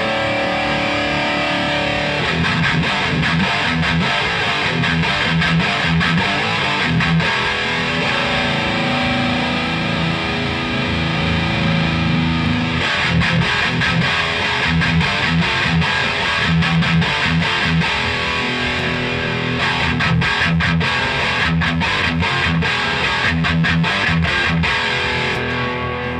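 Distorted electric guitar riffs played through a Victor Custom Dragon 10 four-channel tube guitar amplifier at full power, compared across its overdrive channels. The tone changes character about 13 seconds in and again near 20 seconds, as the channels are switched.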